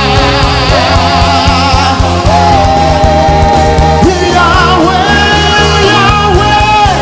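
Live worship music: a singer holds long, wavering notes over a band with steady bass and drum hits.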